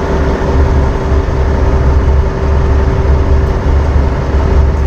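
Grain truck's 454 big-block V8 idling, with a deep uneven rumble and a steady whine over it.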